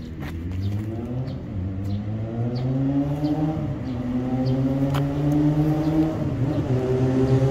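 A motor vehicle's engine running close by, its pitch climbing and dropping back twice before holding steady, growing louder toward the end.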